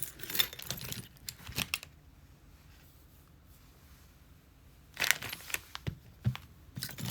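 Small metal tools clinking and rattling as they are rummaged through and set down on a work surface. Sharp clicks come in two bouts: one in the first couple of seconds, then a quiet gap of about three seconds, then more from about five seconds in.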